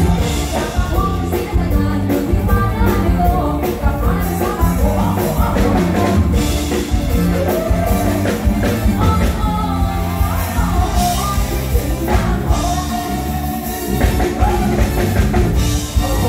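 Live band playing a Thai luk thung song through the stage PA, with a woman singing lead over a steady drum beat.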